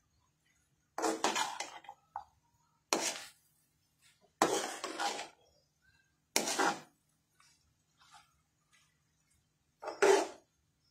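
Spatula scraping and stirring fried rice in a metal pan: five separate strokes, a second and a half to two seconds apart, with a longer pause before the last.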